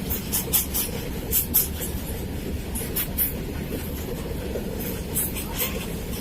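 Freight train of BCNHL covered wagons rolling past: a steady low rumble with groups of sharp wheel clicks over the rail joints.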